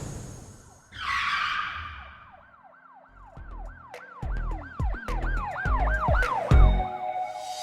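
Produced intro sound effect: a whoosh, then a siren-like warbling tone rising and falling about three times a second over low thumps that grow louder, ending on a held tone.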